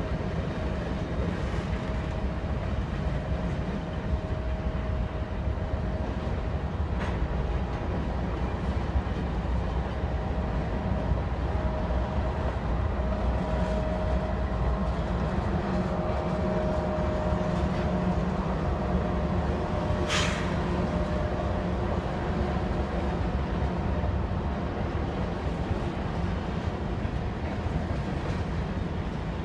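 Freight train of covered grain hopper cars rolling past: a steady rumble of wheels on the rails, with a faint steady whine over it. A sharp metallic click about twenty seconds in.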